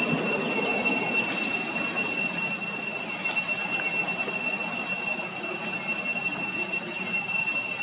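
Steady high-pitched drone, like a cicada chorus, holding one unchanging whine over a constant hiss.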